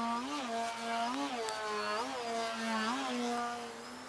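Model Edge 540T aerobatic plane's motor and propeller running in flight, a steady hum whose pitch swells up and drops back about four times, then fades near the end.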